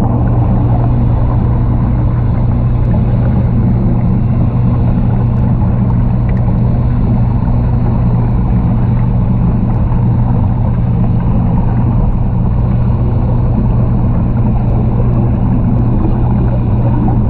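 Steady low mechanical hum over a dense rumble, unchanging throughout.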